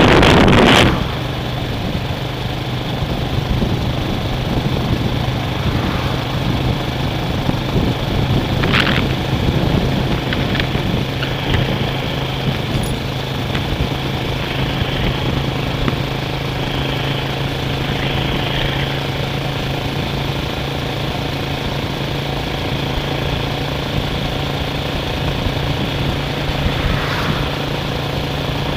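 Steady low engine hum with one constant low tone under a haze of noise, opening with a brief, very loud burst.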